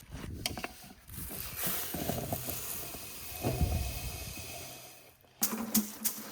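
Dry sesame stalks and pods rustling and crackling as they are handled to release the seed. Near the end, sharp regular taps begin, about three a second.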